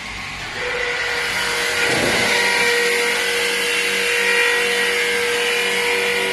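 Wintersteiger ski service machine running as a ski is fed through: a steady motor whine and grinding hiss over a hum, getting louder about half a second in and again near two seconds in.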